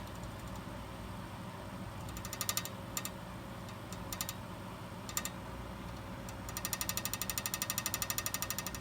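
A machine's abnormal noise: a steady low hum with bursts of rapid rattling ticks, about a dozen a second, several short bursts and then a continuous run over the last two seconds.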